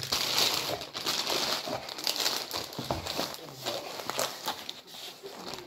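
Clear plastic packaging film being crumpled and crinkled by hand, a dense crackling that goes on throughout, with a few soft knocks as the cardboard box is handled on the wooden table.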